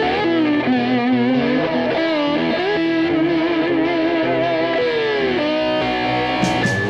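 Background rock music: a distorted electric guitar playing a sustained lead with vibrato and bends, drums coming in near the end.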